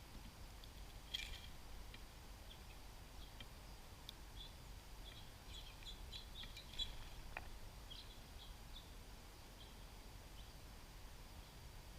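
Faint, scattered short chirps and chip notes from small songbirds at a feeder, with two sharp clicks, one about a second in and one past the middle.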